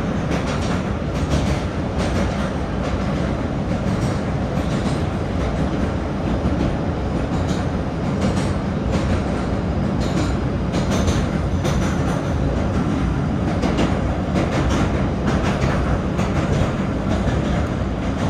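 MBTA Blue Line subway car running through a tunnel, heard from inside the car: a steady, loud rumble of steel wheels on the rails with scattered clicks from the track.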